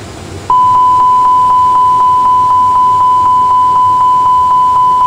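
Loud, steady high-pitched warning tone from the Airbus A320 simulator's cockpit warning system, with a faint ticking about four times a second. It starts about half a second in, as the aircraft, gliding with both engines flamed out, runs out of energy short of the runway.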